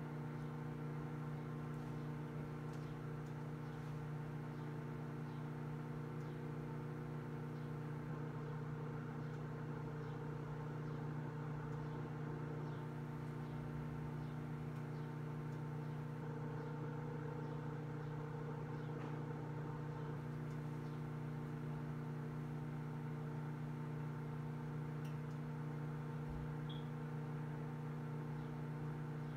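Sanyo countertop microwave oven running: a steady electrical hum with its fan, with a few faint ticks. The kernels are heating and have not yet started popping.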